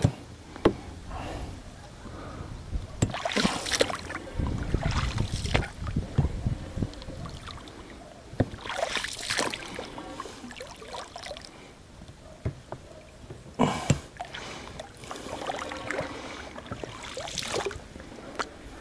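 Oars of an inflatable rubber boat rowing, several strokes a few seconds apart, each a splashing swish of the blade through the water, with a few sharp knocks of the oar.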